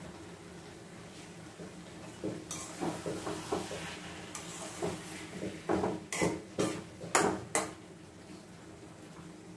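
Kitchen clatter: utensils knocking and clinking against pots and dishes, a run of light knocks that ends in four sharp, louder strikes about two-thirds of the way in.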